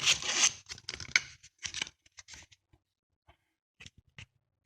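Light clicks and scrapes of a laptop hard drive and its mounting bracket being handled and pulled at, busy for the first two seconds, then a few scattered ticks.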